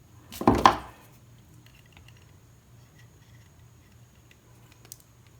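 Handling noise as stiff wire is worked against a cork mount: a short scraping rustle about half a second in, then faint small ticks and one sharper click near the end.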